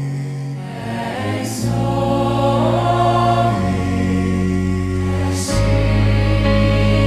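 Gospel worship music: a choir singing held, wordless notes over sustained chords and a deep bass that changes note every couple of seconds, with two soft cymbal swells.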